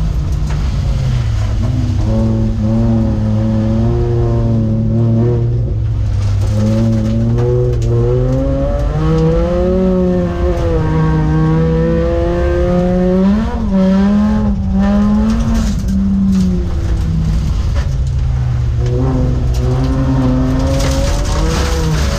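Volvo 850 rallycross car's five-cylinder engine racing hard, its revs repeatedly climbing and dropping through gear changes and corners.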